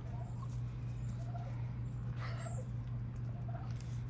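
Chickens giving a few faint, short clucks and calls, the clearest about two and a half seconds in, over a steady low hum.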